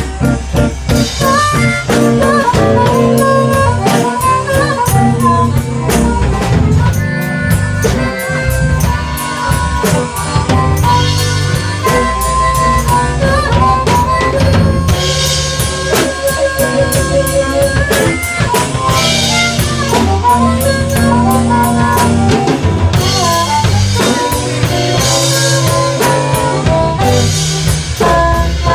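Live blues band playing: harmonica played into a microphone, with electric guitar, bass guitar and a drum kit keeping a steady beat.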